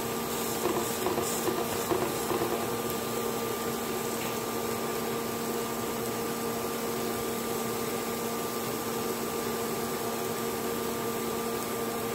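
A steady mechanical hum with a hiss runs throughout. A few light taps and scrapes come in the first two seconds, as a utensil pats a raw burger patty into shape on a ridged grill pan.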